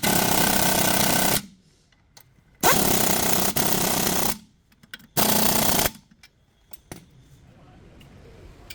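Pneumatic impact wrench hammering in three bursts: a long one cutting off about a second and a half in, another of nearly two seconds, and a short one near the middle, followed by a few faint clicks.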